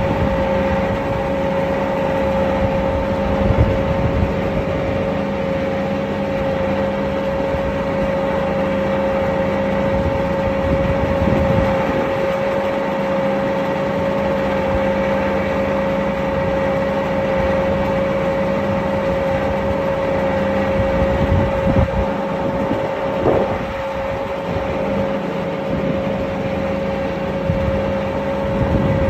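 Twin-screw TMR feed mixer running steadily, its screws turning a load of dairy feed, with the drive engine's steady drone and a constant whine throughout.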